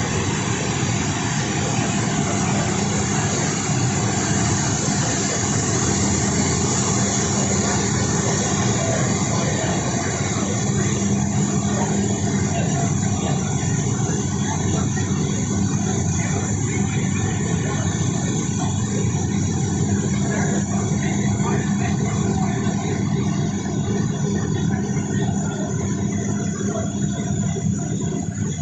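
Steady drone of machinery running inside the cargo hold of a Boeing C-17A Globemaster: a constant low hum under a loud airy hiss, easing slightly near the end.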